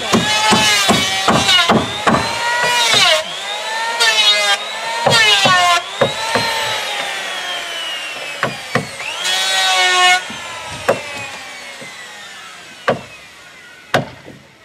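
Handheld electric planer shaving wood, its motor pitch dipping and recovering with each pass, over rapid knocks in the first few seconds. About ten seconds in the motor is switched off and winds down with a falling whine, followed by a couple of single knocks.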